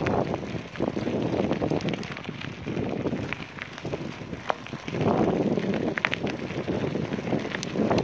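Bicycle tyres rolling over a gravel dirt track, with wind buffeting the microphone in swells and scattered small clicks and rattles.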